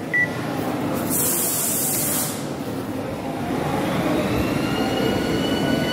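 EMT Lightning McQueen kiddie ride starting up: a short beep, a brief hiss, then the ride's motor running with a steady rumble and a whine that rises in pitch about three and a half seconds in, then holds.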